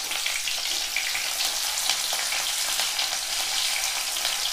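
Chopped onions sizzling steadily in hot oil in a metal wok, being fried until reddish-brown, with faint scrapes of a metal spatula stirring them.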